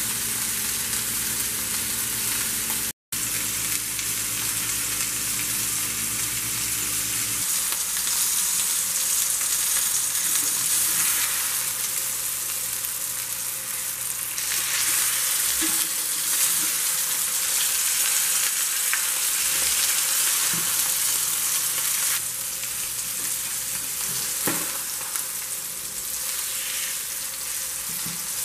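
Chunks of beef chuck roast sizzling steadily as they sear in a pan on medium-high heat.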